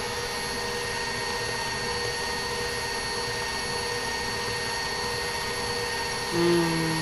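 KitchenAid stand mixer running at medium speed, its motor giving a steady whine as it beats cake batter until fully incorporated. A brief low hum about six and a half seconds in.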